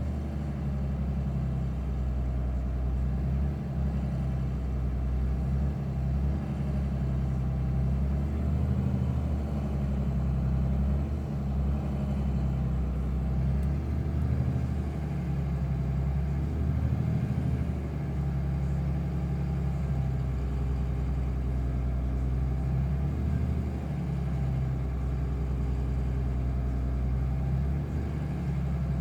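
Diesel engine running at a steady throttle, heard from inside the cab, its low drone swelling and dipping unevenly every few seconds as the engine speed bobbles on its own, an unstable idle that the owner is showing.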